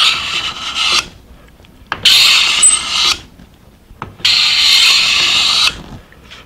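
Scraper plane with a freshly sharpened, burred scraper blade pushed along the edge of a hard maple board: the end of one rasping scraping stroke, then two more full strokes, each cutting fine shavings.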